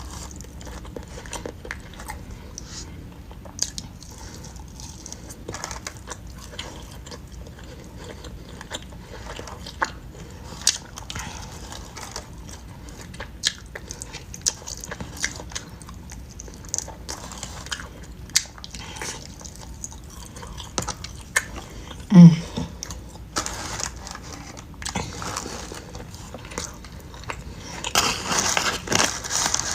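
A person eating close to the microphone: chewing, lip smacks and many small wet mouth clicks. About 22 seconds in there is a short, loud hum-like voice sound, and near the end a denser burst of crinkling and rustling.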